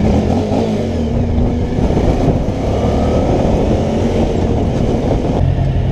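Motorcycle engine running under way, with a rushing haze of wind and road noise over it. Near the end the sound changes abruptly to a steady, low engine idle.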